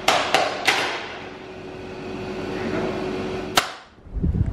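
Sharp knocks of a chocolate praline mould being tapped on a stone counter: three in quick succession, then one more about three seconds later, over a steady machine hum. Near the end the sound changes to a low wind rumble on the microphone.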